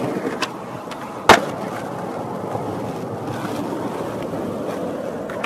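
Skateboard wheels rolling on concrete and asphalt, a steady grinding roll. A light click comes about half a second in, and a single loud clack of the board striking the ground a little over a second in.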